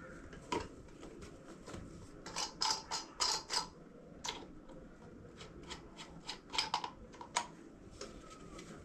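Parts of a gift being handled and fitted together during assembly: irregular sharp mechanical clicks and rattles, bunched in two quick runs about two and a half and six and a half seconds in.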